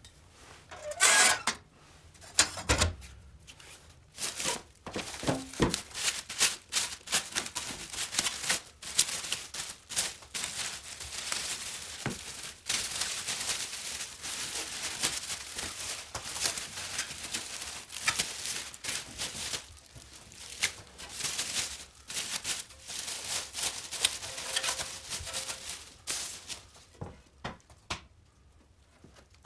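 Clear plastic wrap crinkling and tearing in quick, irregular crackles as it is pulled off a painted steel motorcycle frame, stopping a few seconds before the end.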